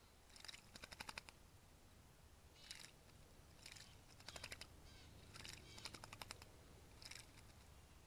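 Faint, short bursts of rapid splashing from an American robin bathing in a shallow stream pool, flicking its wings and body in the water, several times over.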